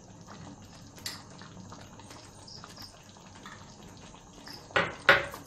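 Thick butter chicken gravy simmering in a pan, with faint bubbling and ticking. Near the end come two sharp clicks in quick succession.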